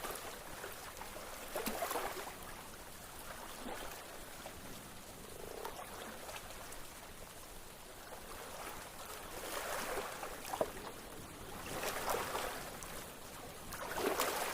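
Running water: a steady rushing, gurgling noise that swells and eases in uneven surges, louder in the second half.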